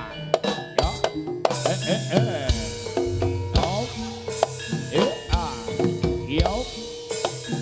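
Jaranan music from a Javanese traditional ensemble: fast, driving drumming with many strokes that bend in pitch, over ringing, held tones of metal percussion.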